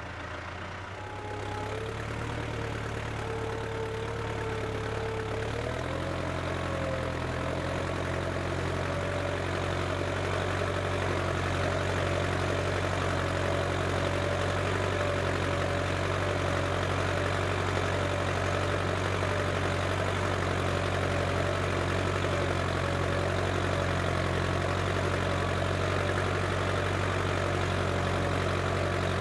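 Case International 885XL tractor's diesel engine running steadily. About six seconds in its note steps up and gets louder, with a thin whine rising in pitch over it, then it holds steady.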